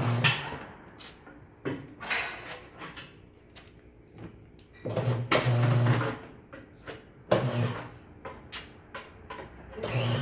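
Tire changer at work on a low-profile tire: a series of knocks and clunks of metal and rubber, with a low steady hum of the machine running for about a second and a half around five seconds in.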